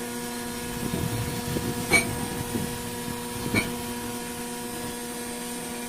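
Microwave oven running and heating with its magnetron powered through a newly replaced filament connector: a steady electrical hum, with two sharp clicks about two and three and a half seconds in.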